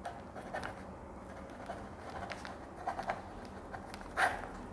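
Pen writing on a notebook page: faint scratching with small ticks as the strokes are made, and one brief louder sound near the end.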